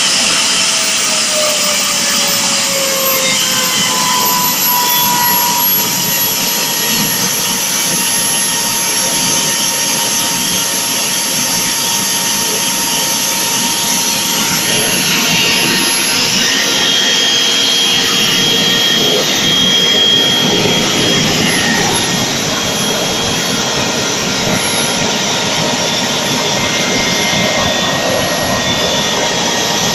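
Homemade model jet engine with a four-stage axial compressor and single-stage turbine running: a loud, steady rushing roar with a high whine on top. The whine falls in pitch over the first few seconds, then holds steady.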